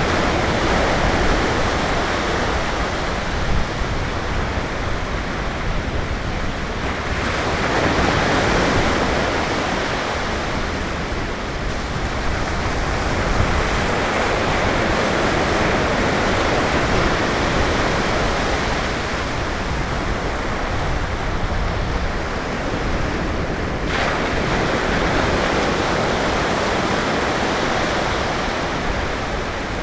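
Ocean surf breaking and washing up the beach, a steady rushing that swells and eases as each wave comes in.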